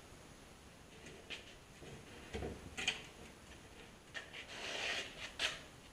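Scattered light clicks and knocks of tools and clamps being handled at a workbench vise, with a dull thump about two and a half seconds in and a brief rustle shortly before the end.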